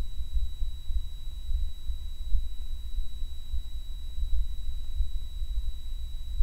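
A low, rumbling, unevenly throbbing hum from a microphone and microbarograph recording of the 'Viernheim Hum', the low-pass-filtered pressure signal played as sound. Over it runs a steady high-pitched tone, with a fainter whine at 1 kHz from the microbarograph's 1 kHz sampling.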